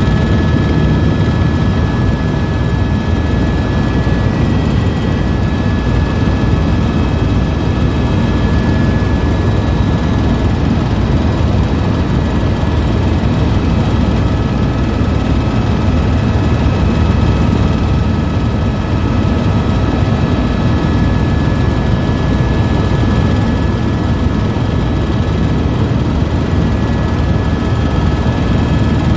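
Helicopter running in steady cruise, heard from inside the cabin: a constant low rotor and engine drone with a thin, even turbine whine above it.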